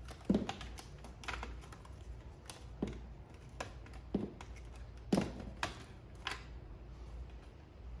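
Flexible metal conduit being handled and pushed into the plastic mounting back plate of a Tesla Gen 3 Wall Connector: a series of irregular clicks and light knocks.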